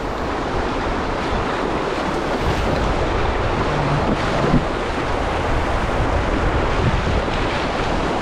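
Glacier-fed river rushing over shallow rocks in a rapid, a steady even wash of water.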